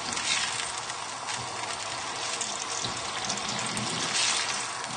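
Stock and rice coming to the boil in a frying pan over high heat: a steady bubbling hiss, with a wooden spoon stirring through it and two brief swells as it is pushed around.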